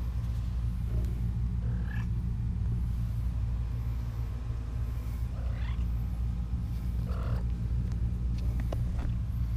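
A few faint, short mews from young kittens, one of them rising in pitch, over a steady low rumble.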